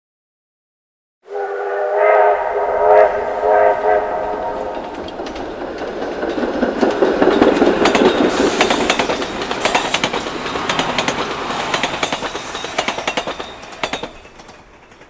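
About a second in, an LNER A4 steam locomotive sounds its chime whistle in about three swells. The locomotive then passes with its carriages, its exhaust and the clatter of wheels over rail joints loudest midway and fading near the end.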